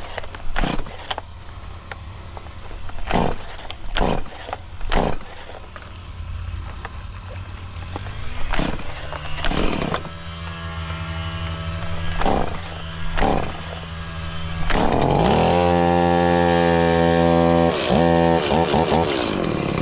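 Two-stroke chainsaw idling with scattered sharp knocks, then revving up about eight seconds in and running steadily at full throttle from about fifteen seconds in, with a brief dip in pitch near the end.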